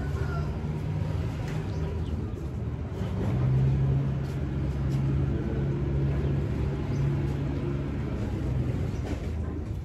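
An engine running steadily with a low hum, louder from about three seconds in until near the end.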